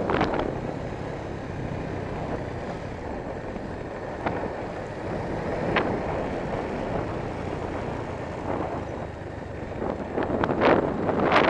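Wind buffeting the microphone on a moving motorcycle, over the bike's steady running and road noise; the gusts grow louder near the end.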